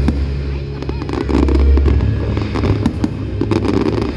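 Aerial fireworks bursting: many sharp cracks and pops, packed close together, over a low rumble of booms.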